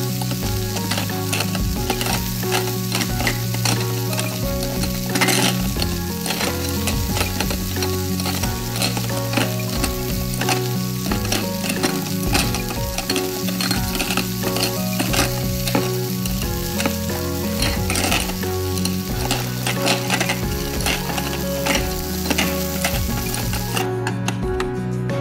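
Sizzling frying-pan sound effect: a steady hiss of frying that cuts off suddenly near the end.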